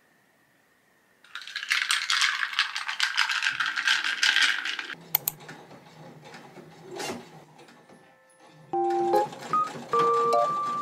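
Loud rattling and clinking of small hard objects for several seconds. A domestic electric sewing machine then runs softly with a low hum and a few clicks as it stitches bias binding. Light piano music starts near the end.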